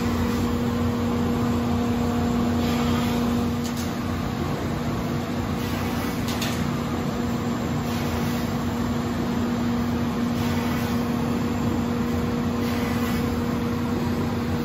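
Anderson Selexx 510 CNC router running with its vacuum pumps and dust collection on: a steady machine hum and air rush with a constant low drone.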